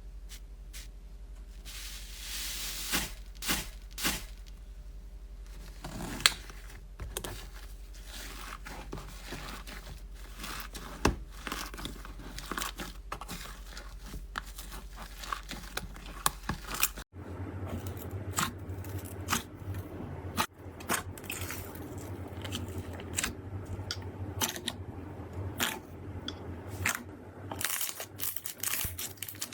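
Slime being handled and squished, with many irregular crackles and small popping clicks. The sound cuts to another slime clip about halfway through.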